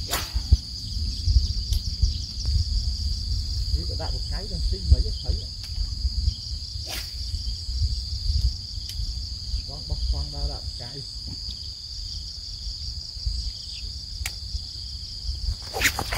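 Insects trilling in a steady, high-pitched chorus over a low rumble, with a few sharp clicks.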